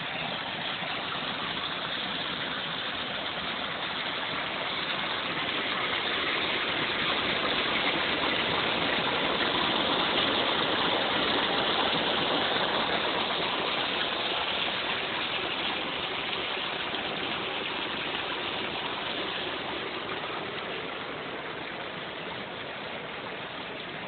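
Mountain runoff water running down a concrete drainage ditch: a steady rushing that grows louder in the middle and eases off near the end.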